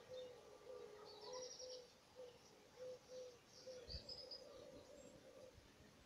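Faint spring birdsong: two short, high chirping trills over a steady run of low, short notes repeated about twice a second, with a single low thump about four seconds in.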